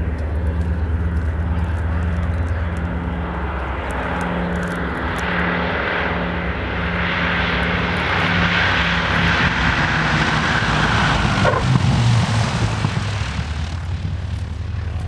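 Douglas DC-3 Dakota's twin radial piston engines making a low pass: a pulsing drone that grows louder as the aircraft comes in, with the pitch dropping as it goes by about twelve seconds in.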